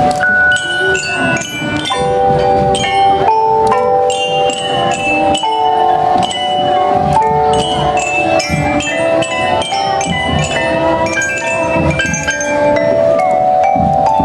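Marching-band mallet section playing a melody: metal-bar glockenspiels struck with mallets, their notes ringing on over wooden-bar xylophones, in a quick continuous run of notes.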